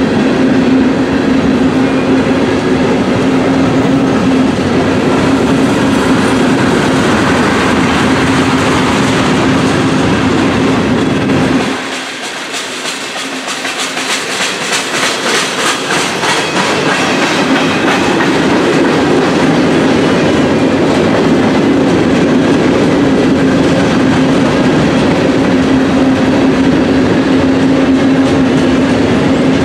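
Freight train cars (covered hoppers and gondolas) rolling steadily past at close range, with a loud rumble of wheels on rail and a steady hum. About twelve seconds in the noise dips for a few seconds, and a run of wheel clicks over the rail joints comes through before the full rolling noise returns.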